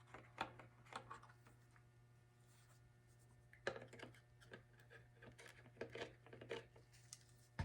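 Faint, scattered light clicks and taps from plastic armor parts being handled while CA glue is applied, over a low steady hum.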